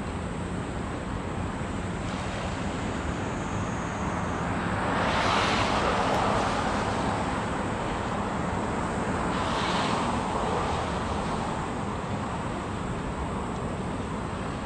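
Steady wind and water noise with a faint low hum under it, swelling into a louder rush of noise about five seconds in and again briefly about ten seconds in.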